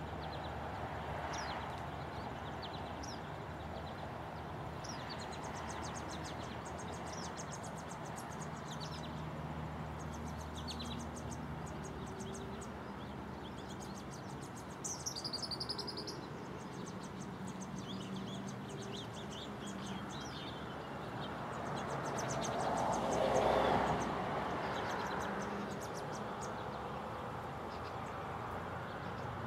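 Outdoor ambience: steady background hiss with birds chirping and rapid high trills on and off, and a louder high chirping call about halfway through. About two-thirds of the way in a broad rush of noise swells and fades over a couple of seconds.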